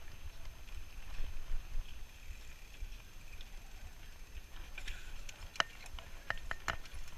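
Bicycle riding over a sandy dirt lot: a steady low rumble from the tyres and wind buffeting the handlebar-mounted microphone, with a scatter of sharp clicks near the end.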